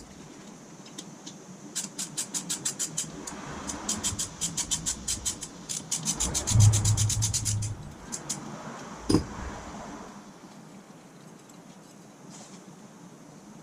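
Rapid run of sharp mechanical clicks, about six a second, for several seconds. Near its end comes a brief low hum, then a single loud clunk.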